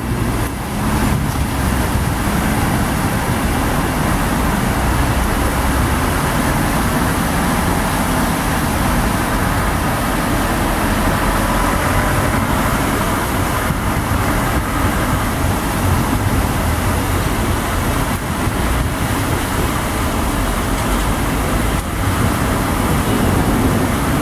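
Cars driving slowly through a flooded street, tyres sloshing and splashing through deep standing water over the sound of their engines, a steady wash of water and traffic noise.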